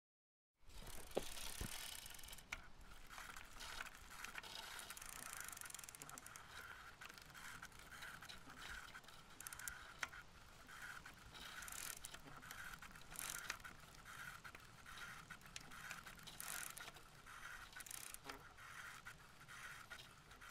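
Bicycle being ridden, heard from the bike: a repeating mechanical noise from the drivetrain, about two pulses a second, with scattered clicks and knocks from bumps in the pavement. It starts abruptly about half a second in.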